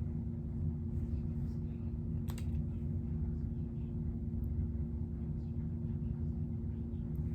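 A steady low hum with two even tones, over which there are faint small clicks and one sharper click a little over two seconds in.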